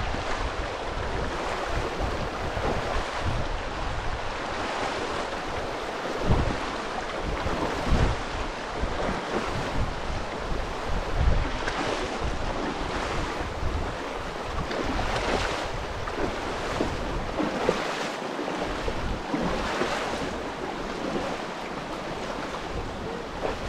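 Kanarra Creek's fast, churning water running steadily, with wind buffeting the microphone in uneven low rumbles.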